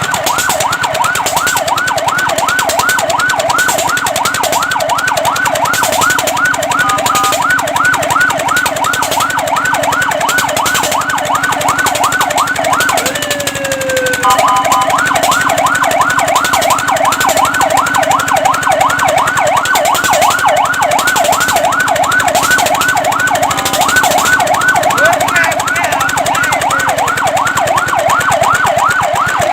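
Fire truck siren on a fast yelp, its pitch rising and falling about three times a second. About halfway through it breaks for a moment with one long downward sweep, then the yelp starts again.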